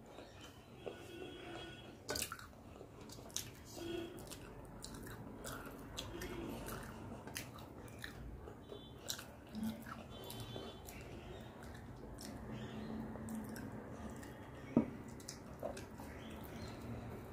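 Close-miked chewing and wet mouth sounds of someone eating rice and curry, with scattered small clicks and one sharper click near the end. The fingers mixing rice against a steel plate add a faint squishing.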